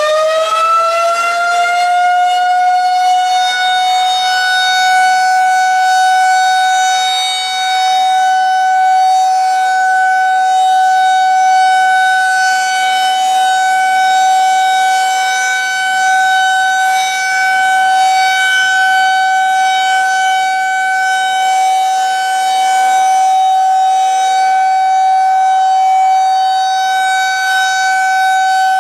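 Federal Signal 2001-SRNB electromechanical siren sounding a steady tone at full speed, just after winding up. Its loudness swells and dips slightly every several seconds.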